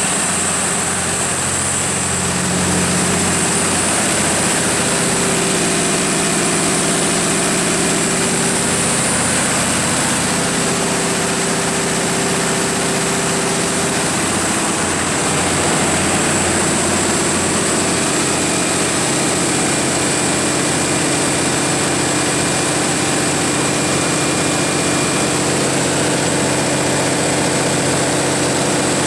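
Cummins KTA19-G4 inline-six turbocharged diesel engine of a 500 kW generator set running at a steady speed, with a steady high-pitched whine over the engine's drone.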